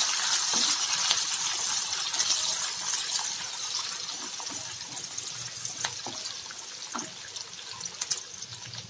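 Sliced onions sizzling in hot oil in a kadai as they are stirred with a wooden spatula; the sizzle fades gradually, and a few light clicks of the spatula against the pan come in the second half.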